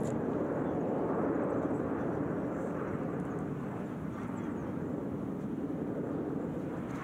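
Jet aircraft of the Frecce Tricolori aerobatic team, Aermacchi MB-339s, roaring overhead in a steady, even rumble that eases off slightly about four seconds in.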